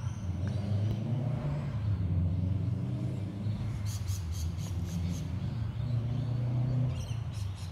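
Low, steady rumble of engine and road traffic, with a few light clicks about four seconds in and again near the end.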